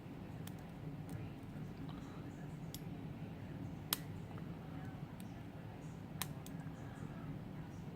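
Lock pick and tension wrench working inside a Brinks 60 mm laminated padlock: scattered small metallic clicks, with one sharper click about four seconds in, over a steady low hum.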